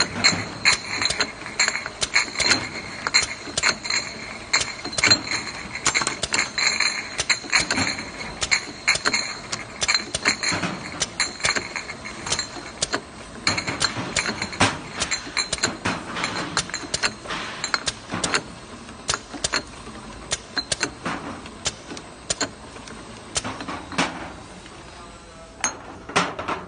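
Automatic linear sticker labeling machine running with glass bottles: dense clinking and clacking as the bottles knock against each other and the conveyor guides, over a steady high machine whine through the first half. The clinks grow sparser toward the end.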